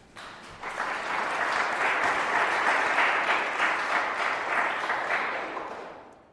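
Audience applauding. The clapping builds over the first second and fades away near the end.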